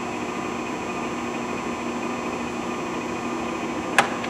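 Harrison 15 x 40 engine lathe running steadily with its carriage power feed engaged, giving a steady gear whine and hum. A single sharp click sounds near the end.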